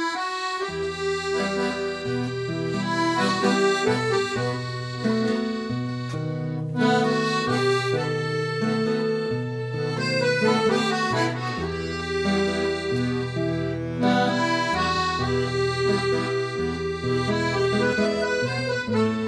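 Instrumental introduction of a havanera: an accordion plays the melody in sustained notes over changing bass notes.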